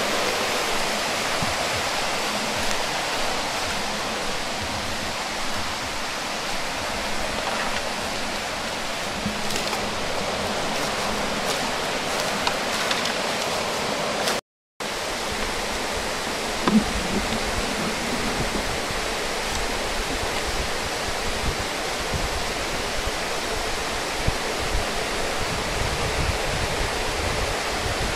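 Steady rushing outdoor noise with no clear pattern, broken by a brief drop-out a little past the middle. A few faint knocks come in the later part.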